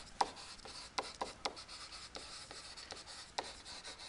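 Stylus writing on a tablet screen: faint scratching of pen strokes broken by a few sharp taps as the tip meets the surface.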